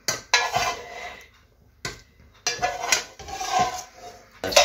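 Plastic spatula scraping and rubbing across a nonstick frying pan in a series of short, irregular strokes, with a few sharp knocks, while soft cheese dumplings are scooped up.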